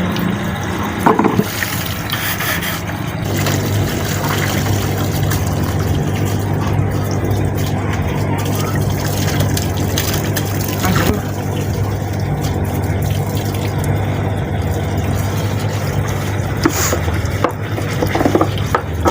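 LG front-loading direct-drive washing machine running, a steady low motor hum with water sloshing in the drum and a few light clicks.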